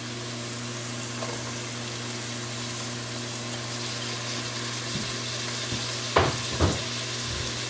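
Onions and diced orange bell pepper frying in oil in a pot, a steady sizzle, with a couple of knocks near the end.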